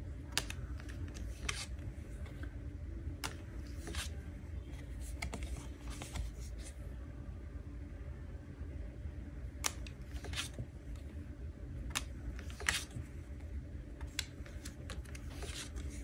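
Stiff paper cards handled by hand: irregular crisp flicks, taps and short slides as cards are picked up, turned and laid down on a wooden table, over a low steady hum.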